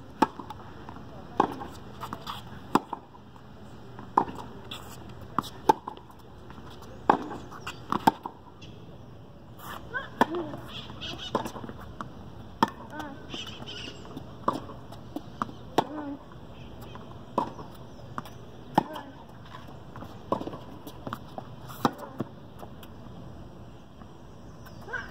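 Tennis ball struck by rackets and bouncing on an acrylic hard court during serves and rallies: sharp pops coming about every second or so.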